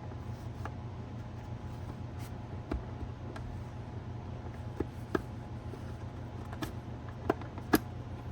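Scattered light plastic clicks and taps as a Hyundai Kona side mirror's plastic cover is gently worked loose from its clips; the cover is a little stuck. The sharpest click comes near the end, over a steady low hum.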